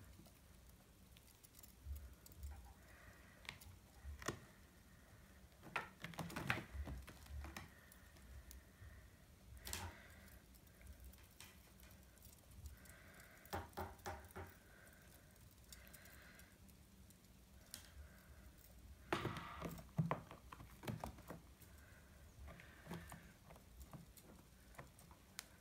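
A kitten's paws and claws knocking and scraping on a sisal-covered cat tower as it plays, a scatter of soft taps and thumps, busiest around six seconds in, near the middle and about three quarters of the way through.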